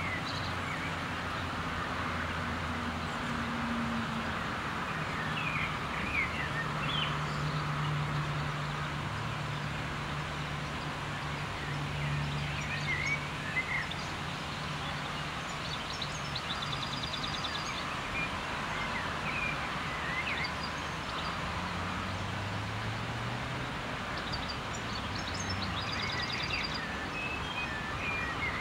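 Outdoor ambience: small birds chirping on and off, with two short rapid trills, over the steady low hum of distant road traffic.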